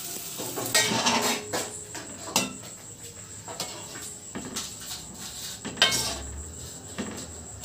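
A metal spoon and then a perforated skimmer stirring jaggery in water in a metal kadai on a gas stove, scraping and clinking against the pan in irregular strokes, the loudest about six seconds in. The jaggery is being melted into syrup.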